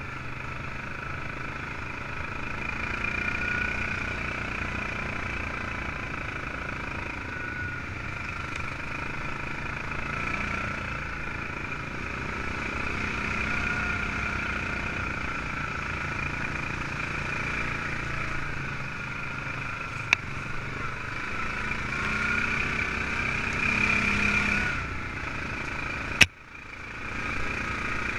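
ATV engine running while the quad is ridden along a dirt track, its pitch rising and falling a little with the throttle. A brief click about 20 seconds in and a loud sharp knock about 26 seconds in, after which the sound briefly drops away.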